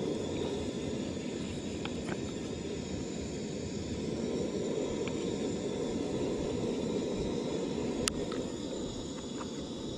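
Steady low outdoor background rumble and hiss with a few faint clicks.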